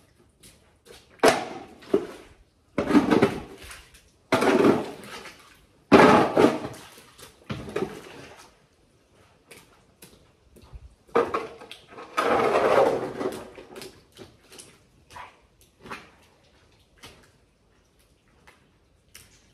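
Long-handled shovel scraping and pushing wet muck across a flooded shed floor in a series of irregular strokes, each about a second long. The strokes are fainter in the last few seconds.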